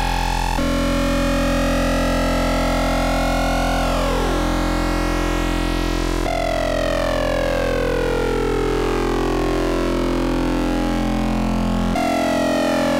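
Modular synthesizer drone from Rossum Trident oscillators wave-spliced through a Klavis Mixwitch, a dense, buzzy tone. Its timbre jumps abruptly a few times as knobs are turned, with a quick falling sweep about four seconds in and several partials sliding slowly downward in the second half.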